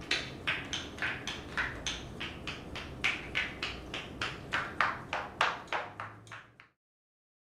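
Marionette's feet tapping on a wooden stage floor as it is walked, about three to four light taps a second, over a low room hum. The tapping stops suddenly near the end.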